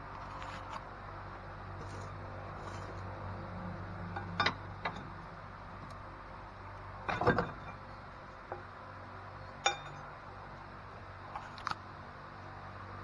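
Metal hand tools clinking and knocking against the steering rack's bolts and brackets as they are loosened: a handful of separate metallic clinks, the loudest a short cluster about seven seconds in, over a steady low hum.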